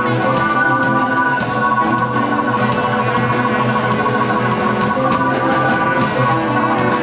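Live fusion band playing, with an organ-toned keyboard holding sustained chords to the fore over a drum kit.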